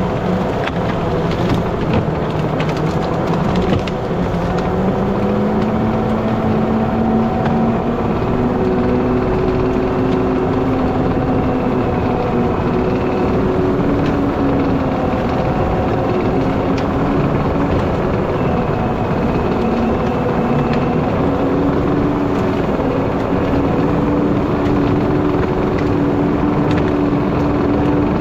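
Skid steer engine running hard under load while a toothed rake attachment pushes pine logs and brush. The engine pitch climbs over the first several seconds and keeps creeping higher, with a few sharp cracks in the first three seconds.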